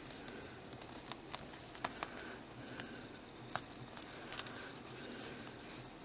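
Faint handling sounds of fingers pressing and working a cone of polymer clay: about half a dozen scattered soft clicks and taps over a low steady hiss.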